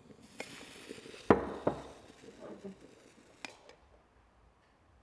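An aluminium moka pot and a ceramic mug being handled: a sharp clunk a little over a second in as one is set down, a smaller knock just after, a few light clatters and a single click later, then quiet room tone.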